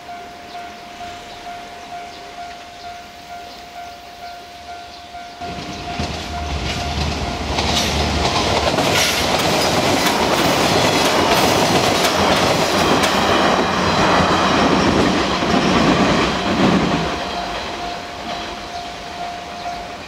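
A Japanese level-crossing warning bell rings in a steady repeating ding. About five seconds in, a passenger train arrives and runs over the crossing, its wheels clattering over the rail joints. The train is loudest in the middle and fades away, and the bell carries on until it stops near the end.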